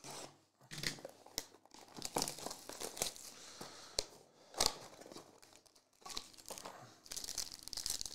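Plastic shrink-wrap on a trading-card box being slit and torn off, crinkling with many sharp crackles. Near the end, a foil card pack crinkles as it is torn open.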